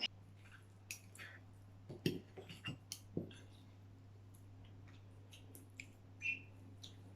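Faint scattered clicks and light taps over a steady low hum, with a few louder taps in the first half.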